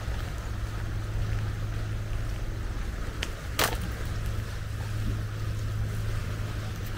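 Steady low mechanical hum over a faint outdoor hiss, with one sharp click about three and a half seconds in.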